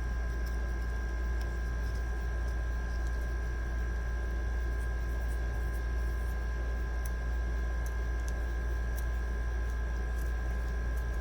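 Steady low electrical hum with two faint steady high whines over it, and a few faint light clicks scattered through.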